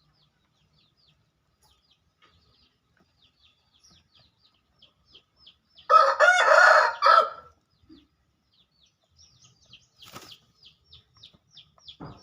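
A rooster crows once, a loud call of about a second and a half starting about halfway through. Under it runs a steady string of short, high chirps. There is a brief flutter-like burst a little later.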